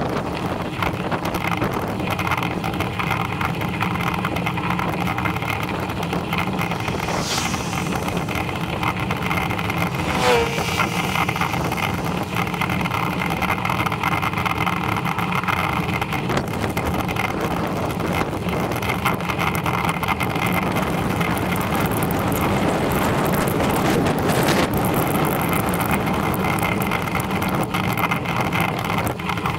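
Steady rush of wind and road noise from riding a bicycle along a tarmac lane, with a short squeak about ten seconds in.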